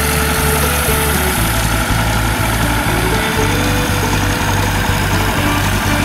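Background music with a bass line stepping from note to note, over a tractor engine running.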